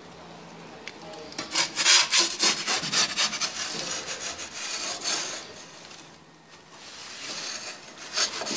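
Pizza peel scraping across the floor of a wood-fired oven as the pizza is turned: a run of rough scraping strokes from about a second and a half in to about five seconds, then quieter.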